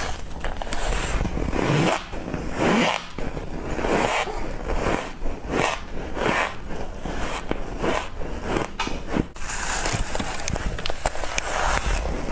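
A person biting into and chewing soft freezer frost in a quick run of crisp crunches, with a denser stretch of grinding crunch near the end.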